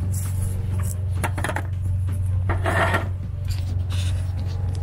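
Footsteps crunching and rustling through dry fallen leaves on a lawn, with two louder crunches about one and two and a half seconds in, over a steady low hum.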